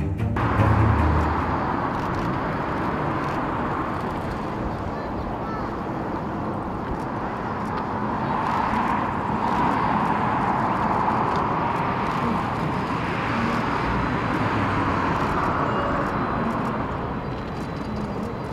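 Airbus A380's four Rolls-Royce Trent 900 turbofans running at taxi power: a steady rushing jet noise that grows a little louder about halfway through.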